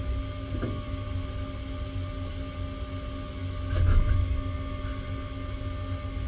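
CNC machining center running: a steady low hum with a faint steady whine from the spindle and axis drives, swelling briefly about four seconds in.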